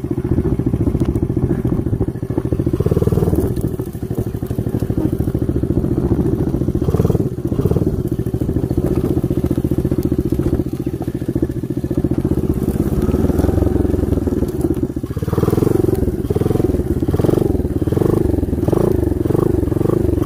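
Small 125cc geared ATV engine running under load, its revs rising and falling as it is ridden, with a marked change in pitch about fifteen seconds in.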